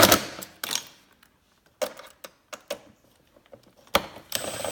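A few sharp clicks and clatters of screws and a screwdriver being handled, spread out with quiet gaps, as Torx screws are fitted into the snowmobile's plastic panels. A louder sound at the very start dies away within about a second.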